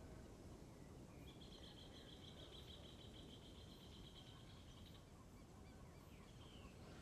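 Faint outdoor ambience with a steady low rumble. A high, fast trill starts about a second in and stops about five seconds in.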